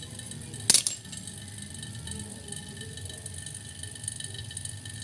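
A single sharp metallic clink with a brief ring a little under a second in, like a tool or fitting knocking on metal, over a steady low background hum.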